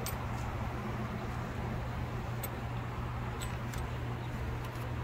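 Steady low mechanical hum with a few faint light clicks.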